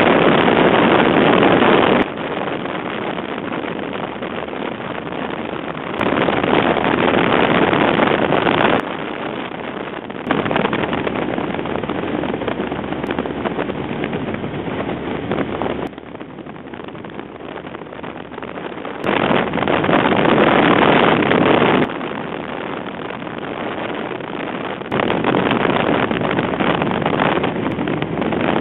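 Steady drone of a light aircraft's engine with wind rushing past the microphone, heard from inside the plane. The noise jumps abruptly up and down in loudness every few seconds.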